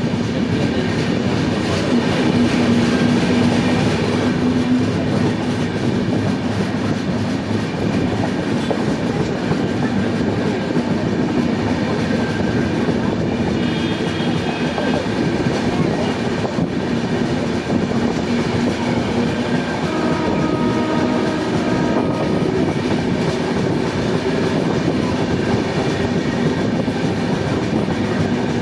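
Indian Railways InterCity Superfast Express running on the track: a steady, loud rumble of wheels on rails with clickety-clack over the rail joints.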